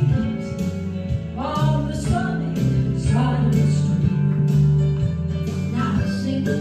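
A woman singing a song into a handheld microphone over recorded instrumental accompaniment with sustained bass notes.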